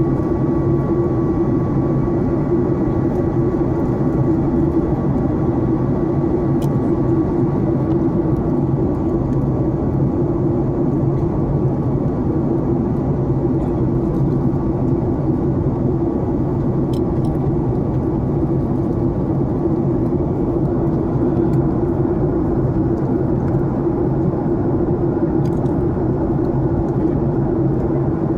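Steady jet airliner cabin noise in flight: an even roar of the engines and rushing air, heard from inside the cabin. A thin whine sits on top of it for the first several seconds, then fades out.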